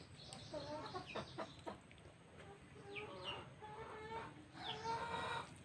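Chickens clucking in short pitched calls that come in a few separate bunches.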